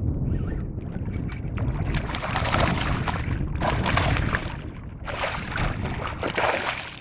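Wind rumbling on the microphone and water washing around a small boat's hull, with louder rushing swells through the middle.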